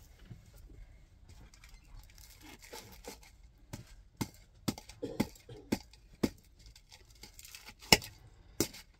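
Garlic cloves being crushed with salt in an aluminium bowl under the base of a drinking glass: gritty scraping and crunching, then a run of sharp, irregular knocks of glass on metal in the second half, the loudest near the end.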